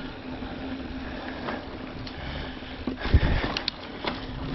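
Mountain bike rolling along a dirt singletrack with steady tyre and frame rattle. About three seconds in comes a quick cluster of clattering knocks and one heavy thump as the bike hits rough ground.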